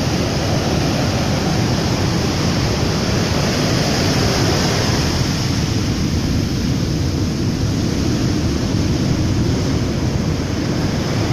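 Rough storm surf breaking and washing up a sandy beach: a steady rush of crashing waves, with wind buffeting the microphone.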